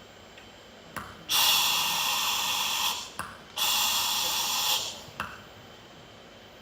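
Hiss like an old television's static, in two long bursts of about a second and a half each, with short clicks before, between and after them.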